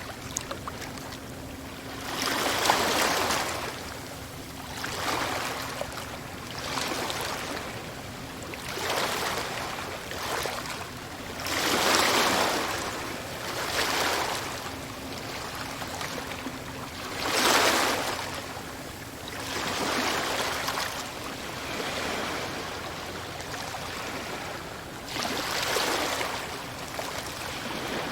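Sea waves washing in one after another, a surge of surf every two to three seconds that swells and falls away, with the biggest breakers about halfway through.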